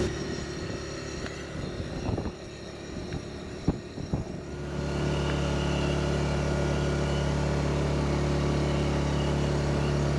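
Engine running steadily, a low hum of several even tones. A few knocks come in the quieter first half, and the hum grows louder and steadier from about halfway.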